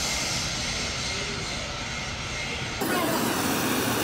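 Gas torch flame hissing steadily as it heats metal in a spin-casting machine's crucible. Near the end the sound abruptly becomes louder and brighter.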